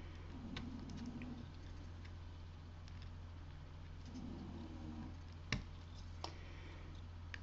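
Faint clicks and taps of male header pin strips being pushed into a solderless breadboard, with one sharper click late on, over a steady low electrical hum.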